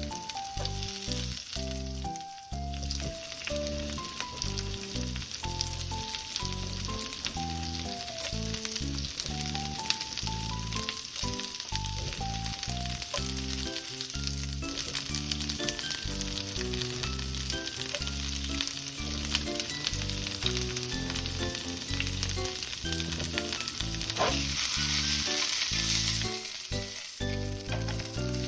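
Greens stir-frying in a pan, a steady sizzle that grows louder near the end, with occasional stirring. Background music plays a slow, stepping melody underneath.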